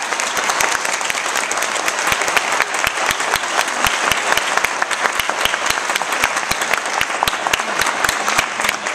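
Congregation applauding: many people clapping steadily in a church.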